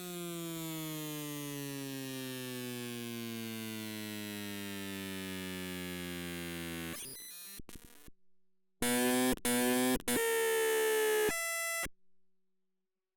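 Synthetic electronic tones. A buzzy tone with many overtones glides slowly downward in pitch for about seven seconds, then breaks into glitchy digital stutters and a few loud, abruptly cut-off buzzing tones, and ends in silence.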